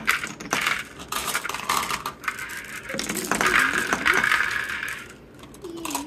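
Glass marbles rolling along the curved tracks of a wooden marble run, with a running rolling rattle and many sharp clicks as they drop through the pieces and knock against the wood and each other.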